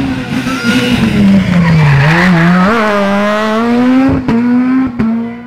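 Rally car engine coming off the throttle into a tarmac hairpin, its pitch falling to a low about two seconds in, then pulling hard out of the bend with the revs climbing steadily. Three sharp cracks come from the car between about four and five seconds in.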